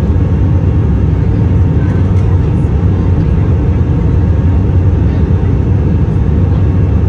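Steady, loud low rumble inside the cabin of an Airbus A319 airliner in flight: jet engine and airflow noise heard from a window seat over the wing.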